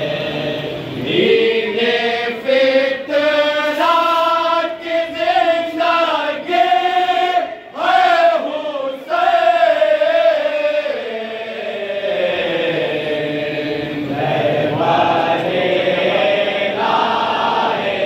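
A nauha, a Shia lament, sung in Urdu by a male lead reciter in long, held, wavering phrases, with a group of men chanting along with him. The singing softens for a few seconds about two-thirds of the way through, then rises again near the end.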